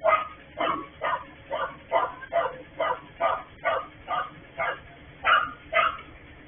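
A dog barking over and over, about two barks a second, in an unbroken run of a dozen or so barks.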